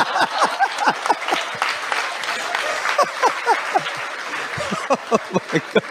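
A large audience laughing and clapping. The claps and laughs thin out toward the end.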